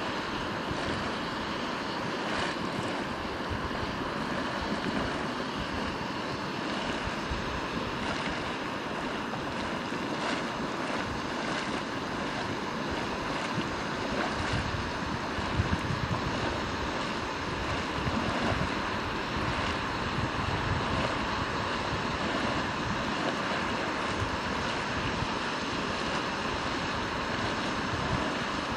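Steady hiss of steam venting from a boiling mud pot and fumaroles, with uneven gusts of wind buffeting the microphone.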